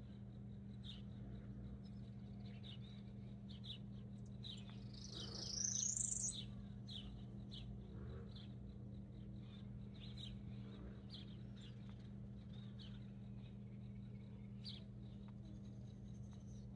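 Small songbirds chirping in short, repeated notes, with one louder whistled call that rises and falls about five seconds in, over a steady low hum.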